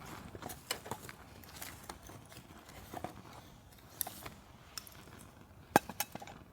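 Irregular light clicks, taps and scrapes of something being handled, with one sharp, louder knock near the end.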